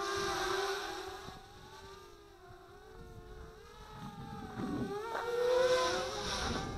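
VIFLY R220 racing quadcopter's brushless motors and propellers whining in flight, the pitch wavering with the throttle. It is loud at first, fades as the quad moves away, then swells again at a higher pitch near the end.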